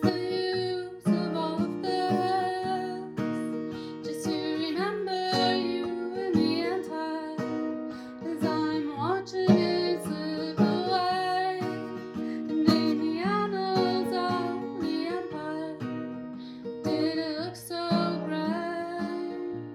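Strummed acoustic guitar playing a steady chord progression, with a wavering melody line carried over it.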